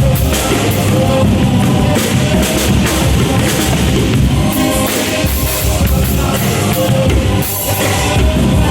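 A drum kit played in a loud rock groove over music with pitched instruments.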